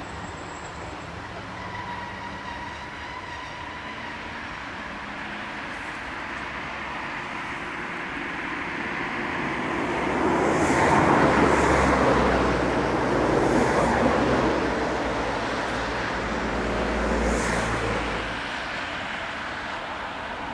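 Electric regional train running on the line, a steady rumble with a low motor hum that swells to its loudest about halfway through and then eases off.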